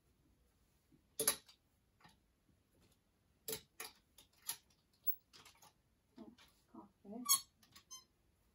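Clothes hangers clicking and knocking against a metal wardrobe rail as garments are pushed along and re-hung: a string of sharp, separate clacks, the loudest a little over a second in and again near the end.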